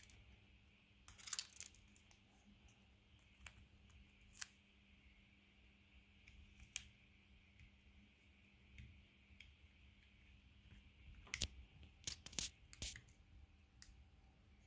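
Near silence broken by faint scattered clicks and light rustles: hands handling tape and the plastic parts of a Garmin Edge 1030 bike computer as its new screen is fitted to the frame. A few clicks come about a second in, and a quick run of them near the end.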